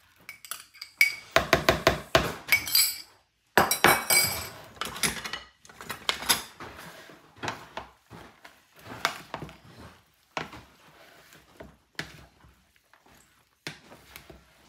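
A spoon clinking against a small glass dish as the dressing is scraped into a mixing bowl, then a wooden spoon tossing chopped fresh salsa in the bowl: irregular knocks, clinks and scrapes, loudest in the first five seconds.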